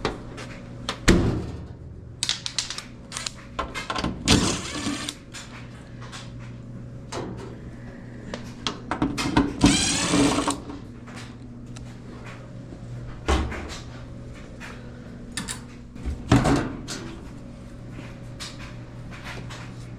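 Scattered clicks, knocks and scrapes of hands and tools working on metal parts inside a Kenmore 90 Series clothes dryer's cabinet, over a steady low hum.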